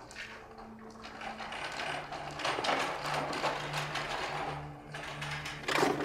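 Rapid mechanical clicking and rattling, like a ratchet or gears, building up and loudest in the middle. A sharp knock comes just before the end, over a low steady tone.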